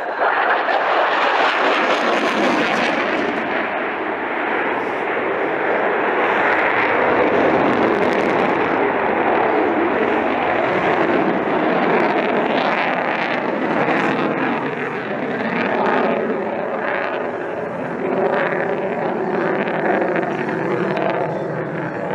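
Jet noise from an F-22 Raptor's two Pratt & Whitney F119 afterburning turbofans: a loud roar that rises sharply as the fighter passes close overhead, then carries on as it pulls up and climbs away, turning rougher and crackly in the second half.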